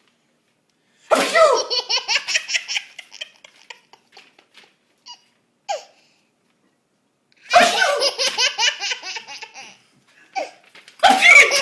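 A man sneezes three times, about a second in, about seven seconds in and near the end. Each sneeze is followed by a toddler's laughter in quick, rhythmic, high-pitched bursts.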